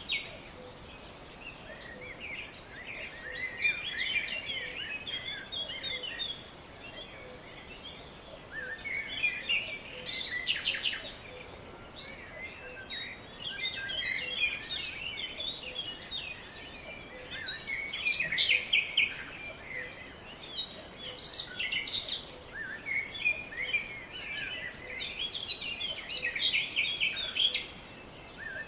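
Birds chirping: clusters of quick, high twittering calls every few seconds over a faint steady hiss.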